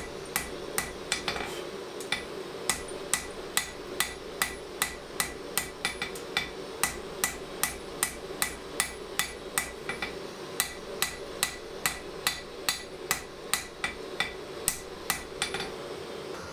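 Hand hammer striking red-hot steel bar stock on an anvil while forging a drawknife blade: a steady run of blows about two to three a second, each with a short metallic ring, over a steady background noise. The blows stop about a second before the end.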